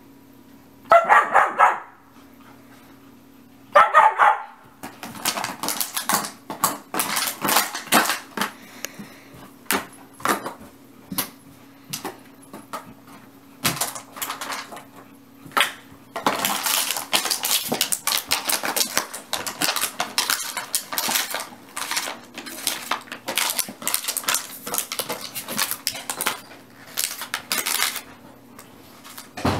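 Two short dog barks near the start, then a long run of dense clicking and crackling from a German Shepherd puppy chewing a toy, with a short lull about halfway through.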